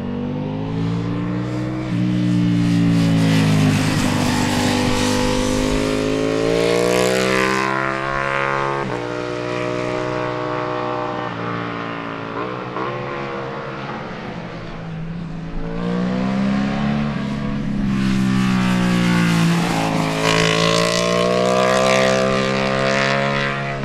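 Ducati Panigale V4 superbikes' V4 engines at racing speed, revving hard with the pitch climbing and dropping as they pass and shift gear. The sound swells twice, loudest a few seconds in and again near the end.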